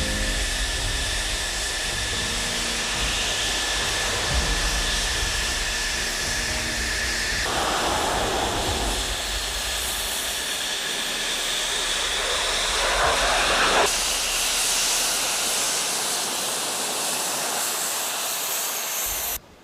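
Military fighter jet engine noise: a steady loud hiss with a high whine in the first part, changing character abruptly twice, at about seven and fourteen seconds in.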